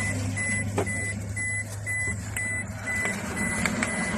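Toyota HiAce 2.5 D-4D diesel engine idling steadily, warm, with a high-pitched electronic beep repeating about two to three times a second and a few light clicks.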